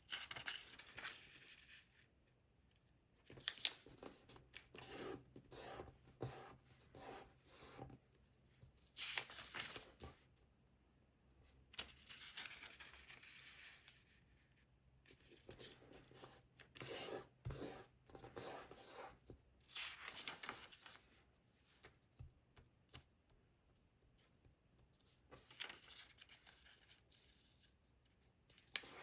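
Paper being folded and handled: irregular bursts of rustling and crinkling, each lasting a second or two, with a few sharp taps as creases are pressed down.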